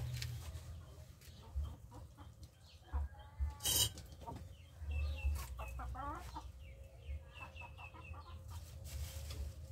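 Chickens clucking, with runs of short high chirps about five seconds in and again around eight seconds, and a brief sharp noise just before four seconds.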